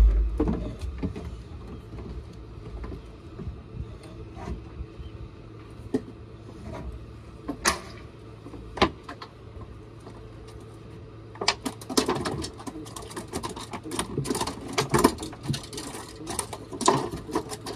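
Handling noises on a boat deck: a heavy thump at the start, scattered knocks and clicks, then a quick, irregular clattering rattle from about two-thirds of the way through.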